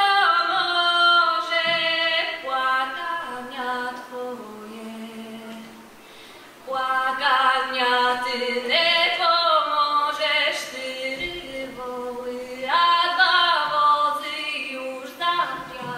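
Solo female voice singing a Lemko folk song in long melodic phrases, with a break about six seconds in. A low held note sounds beneath her voice in places.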